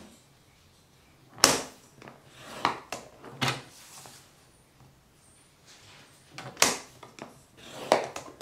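Fiskars paper trimmer's scoring carriage slid along its rail over cardstock, with about five sharp clacks as the card is turned and set against the trimmer for each score line.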